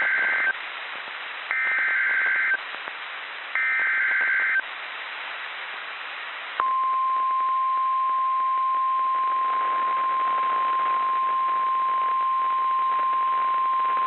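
NOAA Weather Radio alert over the receiver: the tail of one SAME digital header burst and two more, each about a second of screeching data tones with a second of radio hiss between. About two and a half seconds after the last burst, the steady 1050 Hz warning alarm tone comes on and holds, signalling that a warning is about to be read.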